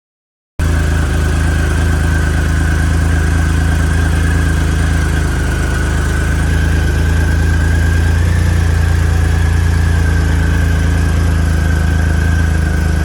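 2009 Triumph Rocket III's 2.3-litre inline three-cylinder engine idling steadily, cutting in abruptly about half a second in, with a steady high whine over the low engine note.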